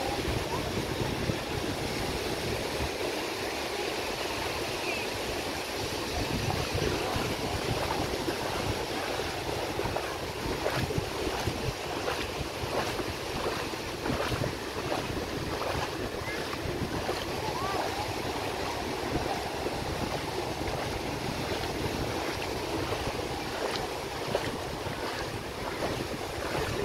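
Surf washing steadily onto a sandy beach, with wind rushing over the microphone.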